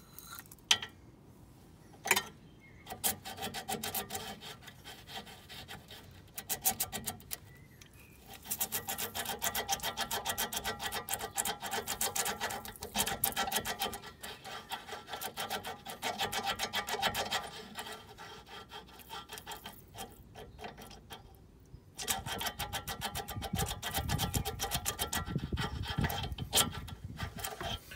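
Steel brake caliper slide pin being worked rapidly back and forth in its bore in the caliper carrier, rubbing and scraping out a build-up of dry old grease and fine metal after a spray of brake cleaner. The scraping comes in long runs with short pauses, after two sharp knocks in the first few seconds.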